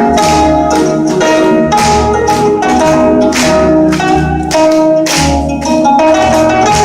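Gayageum music played live: a melody of sharply plucked notes that ring briefly, one note after another with clear attacks.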